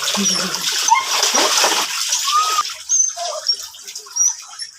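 Running water splashing during a dog's bath, loud for about two seconds and then falling away to a patchier, quieter splashing.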